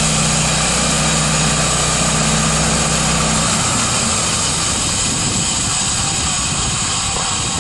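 A band sawmill's 13 HP Honda single-cylinder four-stroke engine running steadily. About three and a half seconds in, its even low drone turns rougher and uneven.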